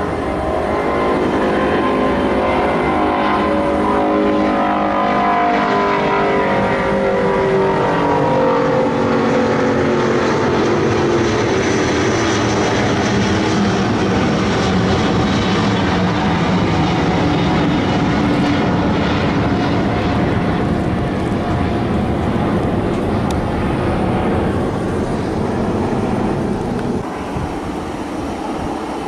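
Rolls-Royce Trent 7000 turbofans of an Airbus A330-900neo at go-around thrust as the airliner climbs away overhead. A loud jet roar carries several engine tones that fall in pitch over the first ten seconds or so as it passes. Near the end the sound drops to a quieter steady jet noise.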